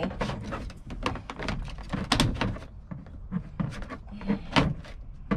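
Irregular knocks, clicks and rattles as a shore power inlet is pushed through a tight-fitting hole in a van's black interior trim panel, with its cord being worked through behind it.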